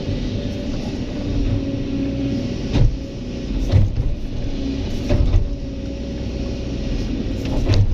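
Diesel engine of a Kobelco SK200 excavator running steadily under work, with several sharp knocks and thumps about a second apart in the middle and one more near the end.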